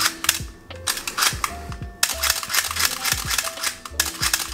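Clusters of sharp mechanical clicks from a Canon AE-1 Program 35 mm SLR being handled, its top controls clicked by hand, over background music with a steady beat.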